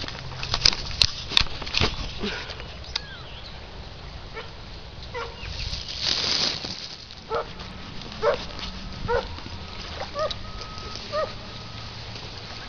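A dog barking five times, about a second apart, in the second half. Before that come a few sharp clicks and a brief rush of noise.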